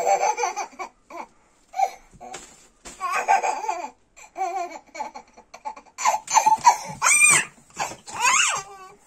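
Toddler babbling and squealing in a run of short high-pitched vocal outbursts, the highest and loudest squeals coming in the last couple of seconds.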